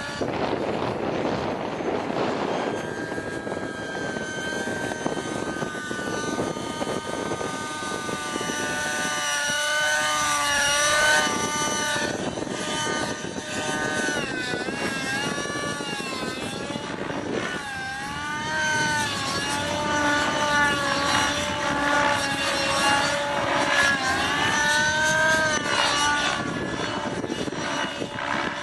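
Align T-Rex 600 Nitro radio-controlled helicopter in aerobatic flight: its nitro glow engine and rotors whine steadily, the pitch swooping up and down again and again as the engine loads and unloads through the manoeuvres.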